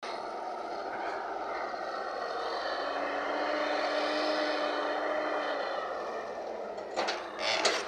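Diesel engines of heavy earthmoving machinery running, swelling and then easing off. Two loud clattering bursts near the end, typical of a bucket working murram.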